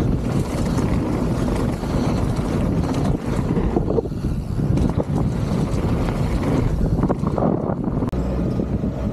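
Wind rushing over an action camera's microphone with the rumble of a mountain bike's tyres on a dirt trail at speed, and a few knocks from the bike over the bumps.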